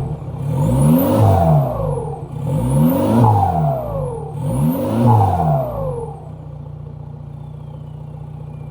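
Straight-piped 2003 Jetta TDI four-cylinder turbodiesel revved three times, each rev carrying a high turbo whistle that climbs and falls with it. About six seconds in it settles to a steady idle while a faint whistle winds down as the turbo spools down.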